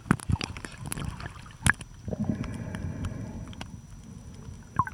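Muffled underwater sound of water moving around a submerged camera: a low rumble with scattered sharp clicks and knocks, the loudest just after the start and about a second and a half in.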